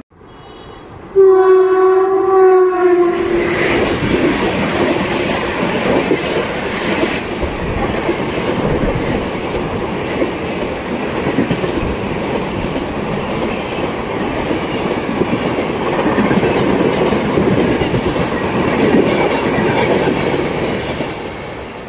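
An Indian Railways express train's locomotive horn sounds one blast of about two seconds, dropping slightly in pitch as it ends. Then the LHB passenger coaches roll steadily past, their wheels rumbling and clattering on the rails.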